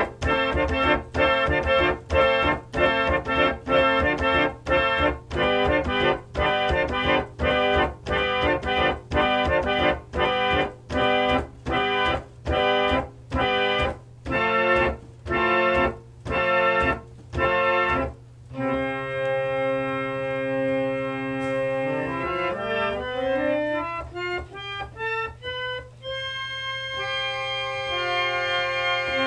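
Organ music: pulsing repeated chords that gradually slow, then held chords with a rising run of single notes climbing step by step over a steady low drone.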